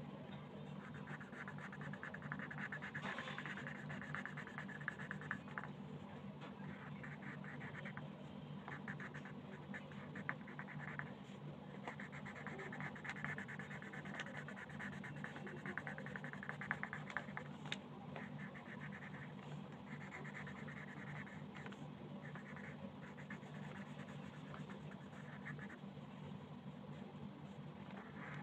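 Colored pencil scratching on paper in quick back-and-forth shading strokes. The strokes come in runs of a few seconds with short pauses between them, over a low steady hum.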